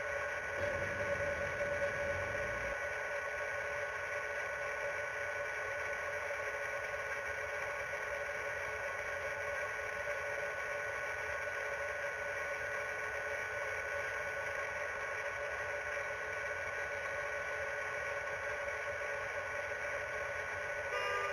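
Steady hum made of several held tones that do not change, with a low rumble under it for the first few seconds.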